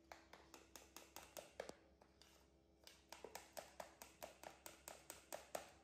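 Metal spoon clinking against a white ceramic bowl as pancake batter is stirred, in quick light taps about five a second. There are two runs of taps with a short pause of about a second between them.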